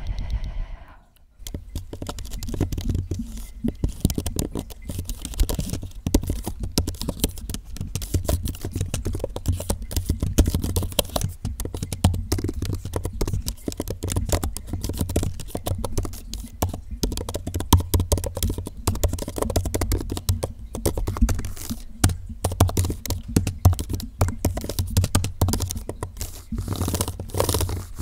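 Close-miked ASMR trigger sounds: a dense, irregular run of crackling and scratching from something handled right at the microphone, with a deep rumble underneath.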